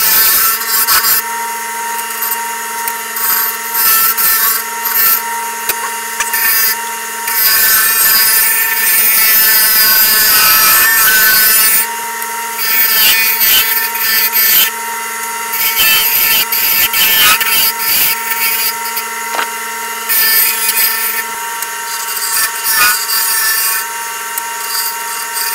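Wood lathe motor running with a steady whine while a turning tool cuts the spinning wooden handle blank. The rough shaving noise comes and goes with the cuts and is loudest for a few seconds in the middle.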